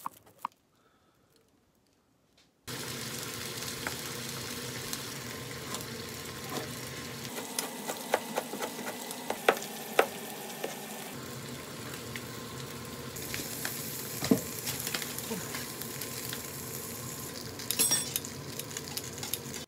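Steady sizzle of food frying in a pan, starting about two and a half seconds in, with sharp taps of a knife on a plastic cutting board partway through.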